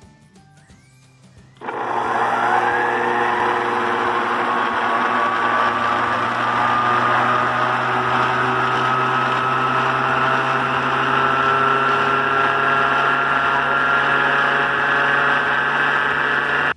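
Cadence Colors orbital stand mixer switched on at speed 1: its motor starts about a second and a half in and runs steadily with a whine that rises in pitch, quickly and then slowly, as the beater mixes cold milk. It cuts off suddenly at the end.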